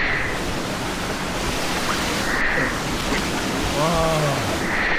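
Mountain valley stream, water rushing steadily over rocks. A brief human voice sounds about four seconds in.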